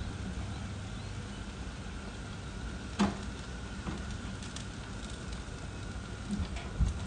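Gas grill with its rear rotisserie burner turned up full, making a steady low rush while fat drips into the flame and crackles. One sharp crack about three seconds in, with a few faint ticks later.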